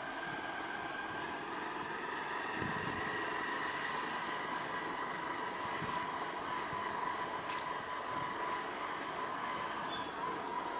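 Small motorcycle running at a steady cruising speed, engine humming with a steady whine, and a brief low bump about three seconds in.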